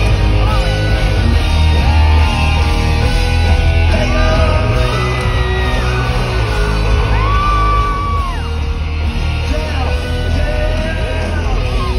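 Live rock band playing loud through the concert PA: distorted electric guitars, bass and drums, with long held notes that slide up and down in pitch.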